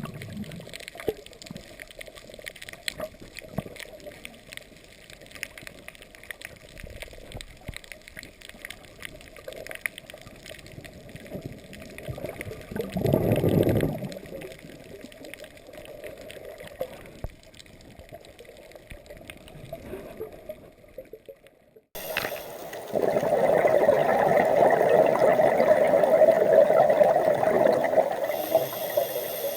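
Sea water gurgling and sloshing around the camera, with fine crackling and a brief louder swell about halfway. About three-quarters of the way through it cuts abruptly to a louder, steady rush of water.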